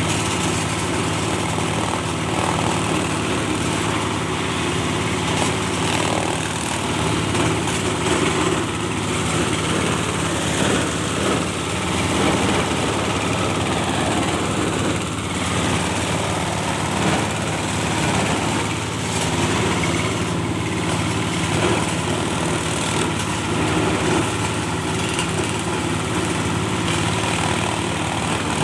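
Engine-driven cocopeat machine (coconut husk grinder) running steadily, its motor note holding constant with a rough grinding hiss over it.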